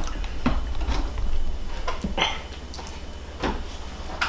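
Plastic blender lid being pressed down and fitted onto the blender jar, with the jar handled on its base: a handful of separate clicks and knocks, over a steady low hum.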